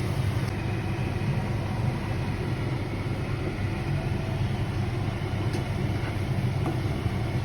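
Steady low mechanical hum with a faint even hiss above it.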